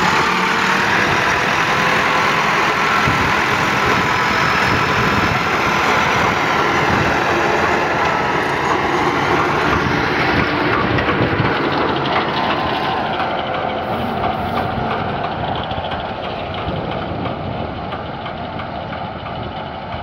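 Tractor-drawn potato digger at work: the tractor's diesel engine running under load with the rattling clatter of the harvester's chain conveyor lifting soil and potatoes. The sound fades somewhat over the second half as the machine draws away.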